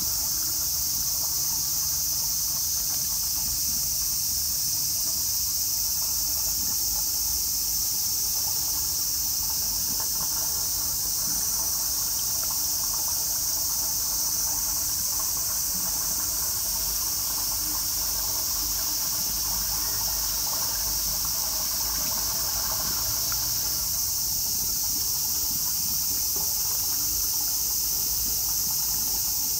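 Cicadas droning steadily as a high-pitched hiss.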